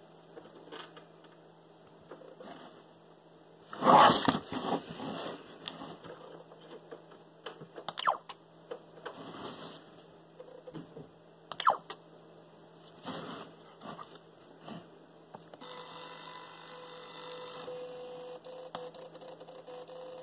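Kodak EasyShare Z740 digital camera being handled and operated: a burst of handling rustle about four seconds in, then two sharp clicks. Near the end comes a steady whir from the zoom lens motor as the lens retracts.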